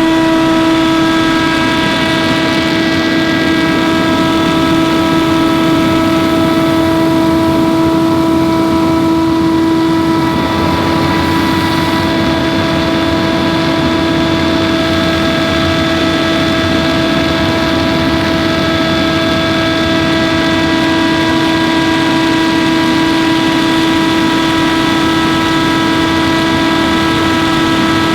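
Scag Windstorm stand-on leaf blower running steadily: engine and fan make a loud, even whine over a rush of air, its pitch shifting slightly about ten seconds in.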